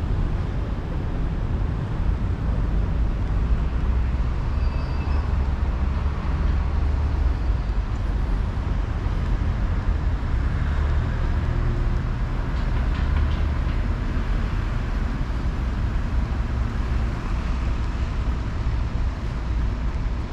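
Outdoor city background noise: a steady low rumble with no single clear source standing out.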